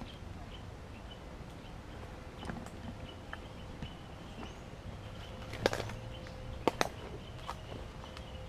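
Footsteps crunching through dry leaf litter and brush, with twigs snapping and branches brushing past. The sharpest cracks come a little past halfway, twice in quick succession. A faint, high, repeated pulsing runs underneath.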